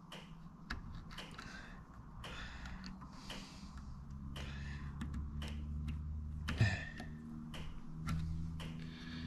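Irregular small clicks and taps of hand work, fitting a rubber strip onto a car door latch part, over a low steady hum that comes in about two and a half seconds in.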